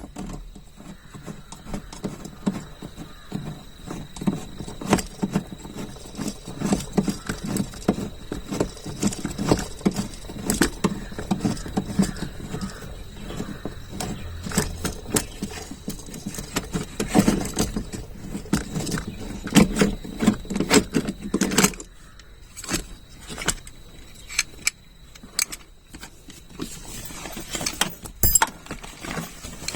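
Hand tools clicking and clinking against metal as a seat belt mounting bolt is loosened and the part worked free inside a car's cabin. Dense irregular clicks and knocks give way about two-thirds of the way through to a few scattered knocks.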